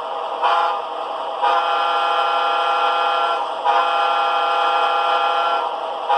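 Model locomotive's sound decoder playing a sampled Nathan P5A five-chime air horn through the locomotive's small speaker: a short toot, then two long blasts of a steady chord.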